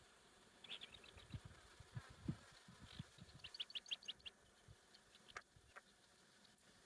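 Faint squeaking of rats trapped in stacked wire cage traps: a few high squeaks about a second in, then a quick run of about seven squeaks about three and a half seconds in, with scattered soft knocks.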